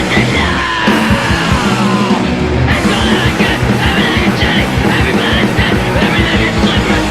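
Punk hardcore band recording: loud distorted guitars, bass and drums with shouted vocals. About a second in, the cymbals drop out for nearly two seconds, then the full band comes back in.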